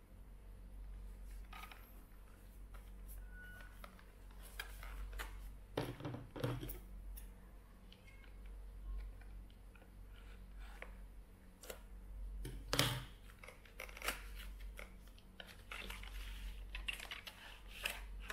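Scissors cutting open a cardboard product box, with handling noise from the box: scattered clicks and snips, and two louder knocks. Near the end comes a rough scraping as a plastic tray slides out of the cardboard. A steady low hum runs underneath.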